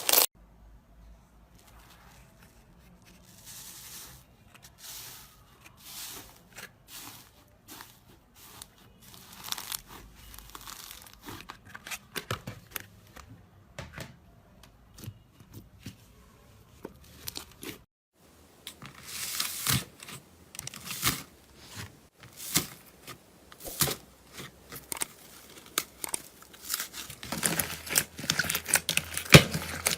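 Slime being handled, stretched and pressed, giving many small crackling, tearing and popping sounds. They are soft and sparse at first, then after a sudden change partway through become a denser, louder run of crackles.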